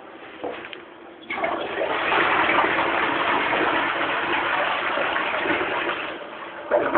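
Toilet flushing: a loud rush of water starts about a second in and runs for about five seconds. A short, sharp knock follows near the end.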